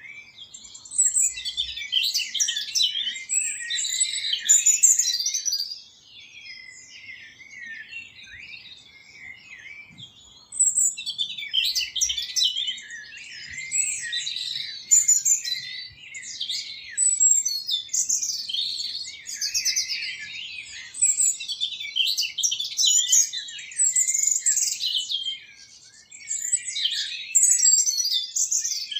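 Songbirds singing, a dense run of quick high chirps and trills. The song pauses for a few seconds about a fifth of the way in and again briefly near the end.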